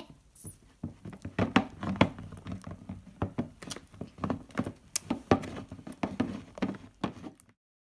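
Spatula stirring a thick mix of glue, shaving cream and lotion in a bowl: irregular wet squelches and taps against the bowl, several a second. The sound cuts off to dead silence near the end.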